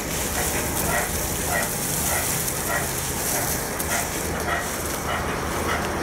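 Pezzolato PTH 900 M drum wood chipper running on its IVECO C87 diesel engine: a steady engine drone with a hiss over it, and a short, sharp sound repeating about every half second.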